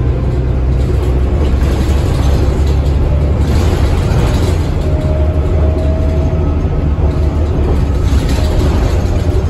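Cabin of a 2008 New Flyer D40LF diesel city bus under way: a steady low engine drone with road noise, and a faint whine about halfway through.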